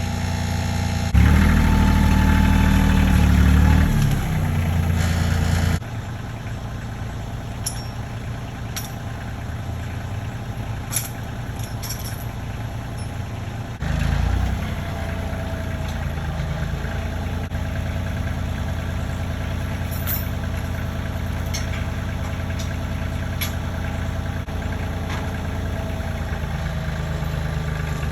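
An engine running steadily at idle, louder for a few seconds near the start, with sudden changes in the sound about 6 and 14 seconds in.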